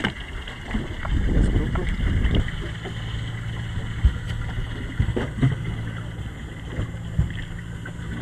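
Small boat's outboard motor idling with a steady low hum, and a few sharp knocks on the hull. There is a rumble of wind on the microphone about a second in.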